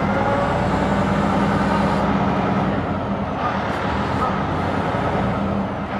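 Aerial ladder fire truck's diesel engine running steadily with a low hum, powering the hydraulics of the raised aerial ladder.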